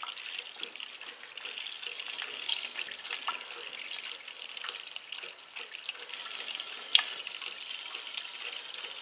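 Water running steadily from a braided flexible supply hose into a plastic drain pipe: an even splashing hiss with small spatters and one sharper click about seven seconds in. The newly connected water line is being run until hot water from the boiler comes through.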